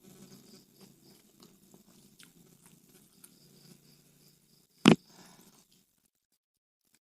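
Close-up chewing of crunchy deep-fried Indonesian snacks (gorengan), a run of faint crackles and crunches, with one loud sharp knock about five seconds in.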